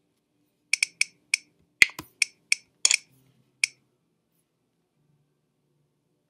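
About a dozen sharp computer mouse clicks in quick, irregular succession over about three seconds, as a quiz answer is selected and submitted.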